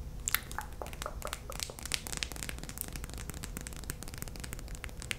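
Sticky lip-gloss mouth sounds close on the microphone: many small, irregular wet clicks and crackles as glossed lips part and press together while gloss is applied.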